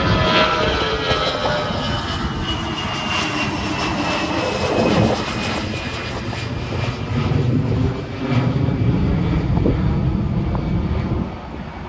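Delta Airbus A319 jet engines at takeoff power as the airliner climbs out past, the engine whine sliding down in pitch as it goes by. The noise drops off near the end.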